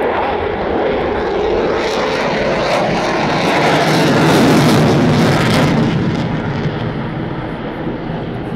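Jet noise from a Boeing F-15I Ra'am's twin turbofan engines passing overhead in a display flight. It grows louder to a peak about four to five seconds in, then eases off.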